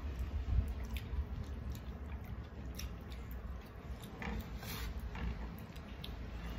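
People eating rice and curry by hand: fingers squishing and mixing food on plastic plates, and chewing, with scattered soft clicks and smacks over a low background hum.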